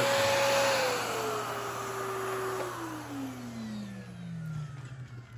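Canister vacuum cleaner motor winding down after being switched off. Its whine drops in pitch in steps and then slides steadily lower and fades over about four seconds.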